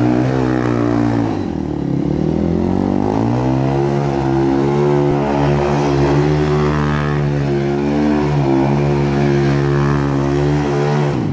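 Sport quad's engine held at high revs while it spins donuts on wet concrete. The pitch drops briefly about two seconds in, then climbs back and holds high, wavering slightly as the throttle is worked.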